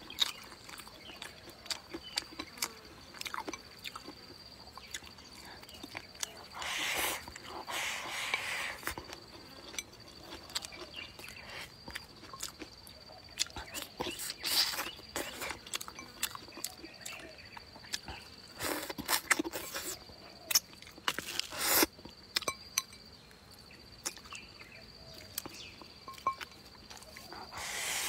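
Close-up eating sounds: wooden chopsticks clicking against the bowl, with chewing and noisy mouthfuls of rice and meat. A thin steady high insect tone hums behind.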